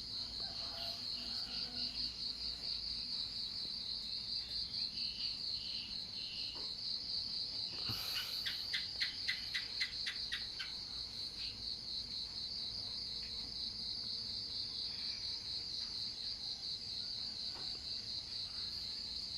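A steady chorus of crickets trilling in a fast, even pulse. About eight seconds in, a quick run of roughly eight sharp chirps, about three a second, rises over the chorus.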